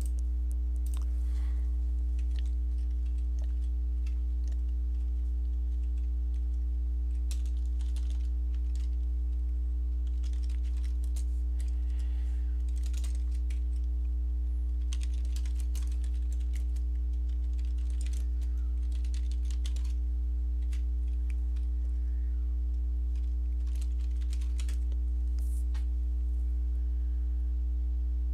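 Bursts of typing on a computer keyboard, quick clicking keystrokes in clusters, over a steady low hum.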